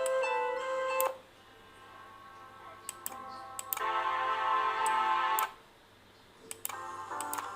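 Short excerpts of instrumental background music played one after another, each cutting off abruptly: notes a second in, a sustained chord in the middle, a new phrase near the end, with a few sharp clicks between them.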